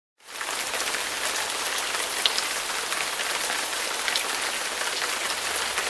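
Steady hissing patter dense with fine ticks, added as a sound effect: it starts abruptly out of dead silence and cuts off sharply.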